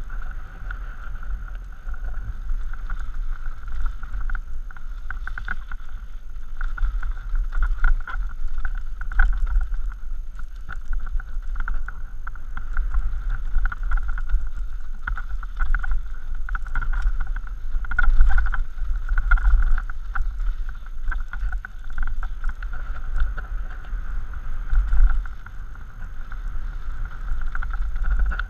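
Mountain bike descending a rocky dirt singletrack at speed: wind rumbling and buffeting on the helmet-mounted camera's microphone, with rattles and knocks from the bike over rough ground and a steady high buzz. The buffeting swells loudest about two-thirds of the way through.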